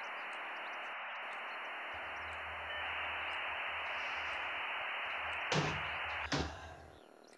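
Steady radio-static hiss, a dead-signal sound after a failed connection. Near the end come two sharp knocks less than a second apart, the first as a laptop lid is shut, and the hiss dies away after the second.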